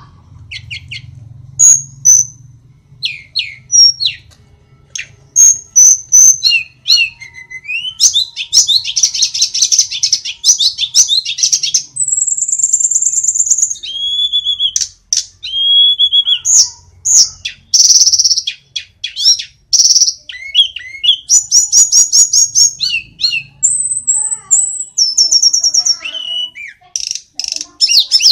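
Hill blue flycatcher in full song: a long, varied string of clear whistles, fast trills and high, quick-fire phrases with short pauses between them.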